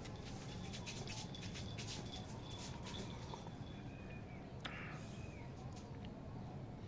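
Light tapping and pattering of a puppy's claws on a concrete floor as it scampers and jumps in play. Most of the taps come in the first few seconds, with a sharp click about halfway through and a few faint bird chirps later on.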